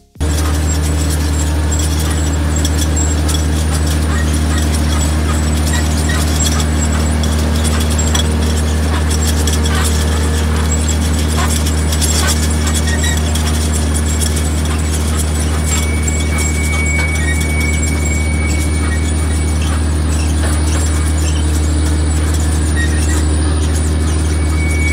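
Self-propelled two-row carrot harvester running: a steady engine drone with constant rattling and clatter from the machinery. A thin high whine comes in during the second half.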